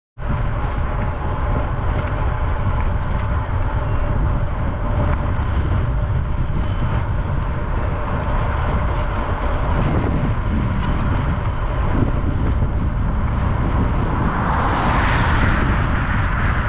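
Steady wind and road rumble from a bicycle riding along a rough asphalt shoulder, heaviest in the lows. Near the end a car overtakes, its tyre noise swelling and fading over about two seconds.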